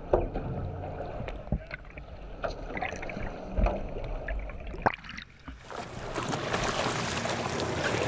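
Muffled underwater sound beside a boat's hull: scattered clicks and knocks over a low rumble. About six seconds in, a steady rushing hiss of sea water and wind takes over.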